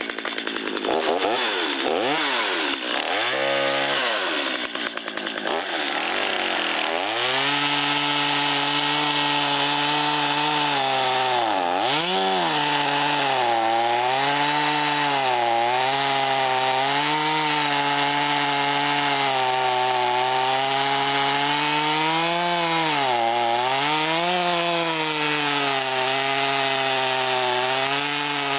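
Vintage Stihl 025 two-stroke chainsaw, revved up and down several times in the first few seconds, then held at high speed cutting through wood. Its pitch dips and recovers again and again under the load of the cut.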